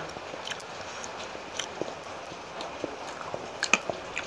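Close-up mouth sounds of chewing lato (sea grapes): scattered small wet clicks and pops, a pair of louder ones about two-thirds of the way through.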